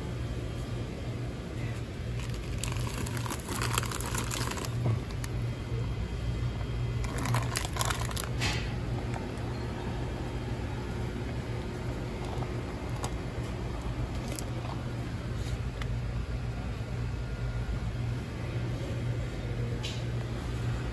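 Rustling and crinkling in two spells, a couple of seconds each, with a few sharp clicks, over a steady low hum.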